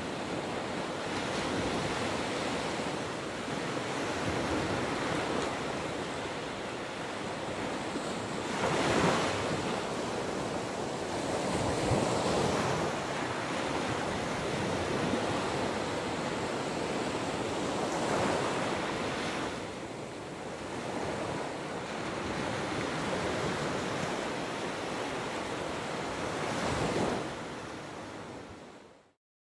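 Gulf of Mexico surf breaking on a sandy beach: a steady wash of water, with louder waves crashing about nine, twelve, eighteen and twenty-seven seconds in. The sound fades out at the very end.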